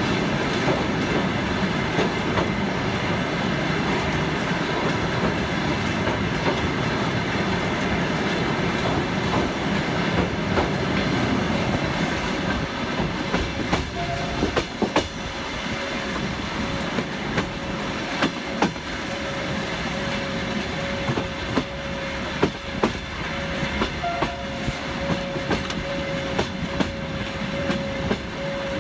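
Passenger train running over a steel truss bridge, a dense, even rumble of wheels on rail. After about twelve seconds it turns a little quieter, with separate wheel clicks over rail joints and a thin steady high tone.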